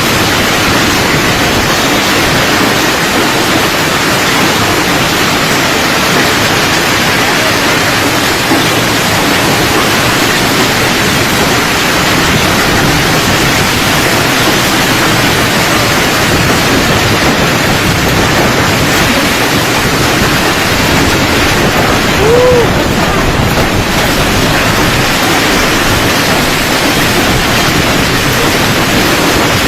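Loud, steady rush of storm-force wind, much of it buffeting the microphone. A short pitched tone rises and falls about three-quarters of the way through.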